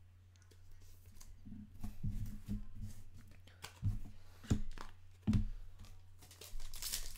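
Trading cards being handled and flipped through by hand: soft rustling and sliding, with a few sharper taps in the second half, over a steady low hum.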